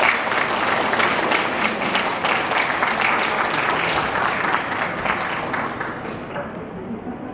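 Audience applauding, a dense patter of clapping that thins out and fades over the last second or two.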